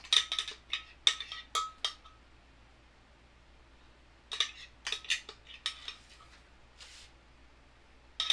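Metal spoon clinking and scraping against a blender jug while scooping thick avocado milk out of it, in two bursts of quick clinks: one in the first two seconds, another from about four to six seconds.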